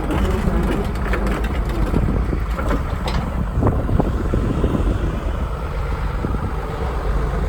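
Diesel engine of a Volvo EC180 crawler excavator running steadily, with wind buffeting the microphone and a few light clicks and knocks in the first half.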